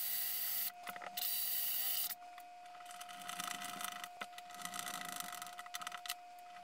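Milwaukee cordless drill driver running in two short bursts, drilling pilot holes into the side of a wall cabinet. After that come softer, uneven handling sounds as a metal rod socket is fitted against the cabinet by hand.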